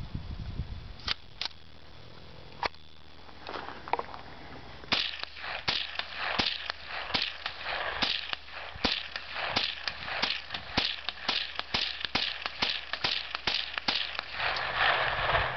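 Rifle fire: three single shots in the first few seconds, then rapid shots at about two to three a second from about five seconds in, continuing through to the end.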